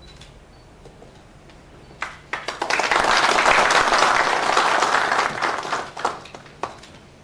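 A group of people applauding: a few scattered claps about two seconds in swell quickly into full applause, then thin out and stop with a few last claps near the end.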